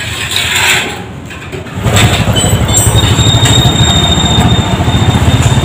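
Motorcycle engine running close by, coming in loud about two seconds in with a rapid, low, even pulsing.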